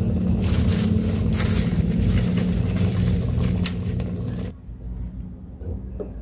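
Pot of fish soup boiling hard on the stove: a steady rumble with bubbling and crackling, which cuts off abruptly about four and a half seconds in. A quieter stretch with a few faint clicks follows.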